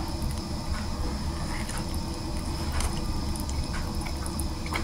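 A person chewing a bite of sandwich close to the microphone: soft, wet mouth clicks and smacks scattered through, over a steady low hum.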